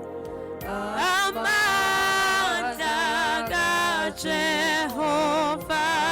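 Slow gospel worship song: a singing voice with wide vibrato holds long notes over a steady sustained accompaniment, coming in loudly about a second in.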